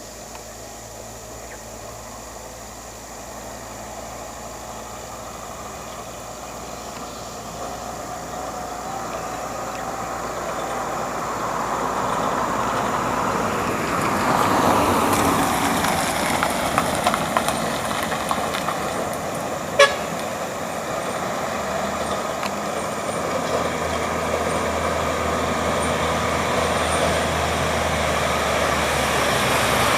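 A loaded logging truck approaching, its engine and tyres growing steadily louder, with one short toot of its horn about two-thirds of the way through.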